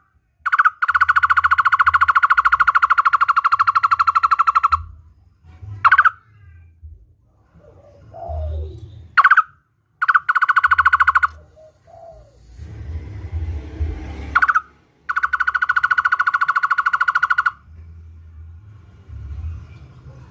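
Barbet (takur) calling in long rapid trills of evenly repeated ringing notes, three runs of a few seconds each, with short single upswept notes between them.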